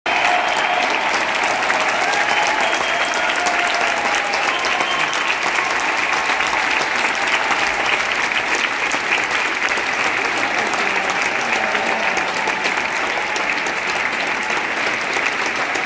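Theatre audience applauding, dense steady clapping that goes on without a break.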